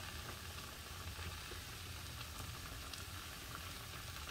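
Food in a pan on the stove's lowest setting, gently sizzling with faint scattered crackles: warming rather than frying. A low steady hum sits beneath it.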